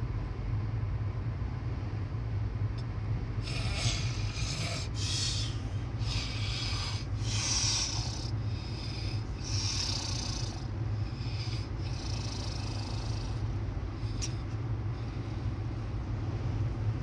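A sleeping person snoring with breathy, horse-like snorts, about eight of them in a row from a few seconds in until past the middle, over the steady low hum of a moving vehicle.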